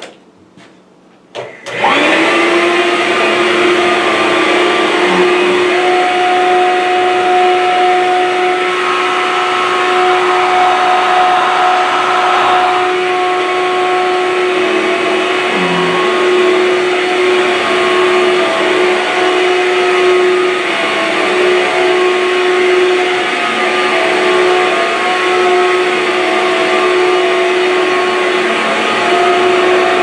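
Hoover Cyclonic corded stick vacuum (SH20030) switched on with its brush roll engaged: a couple of clicks, then about two seconds in the motor starts suddenly and runs steadily with a constant hum as it is pushed over carpet. Really not too loud.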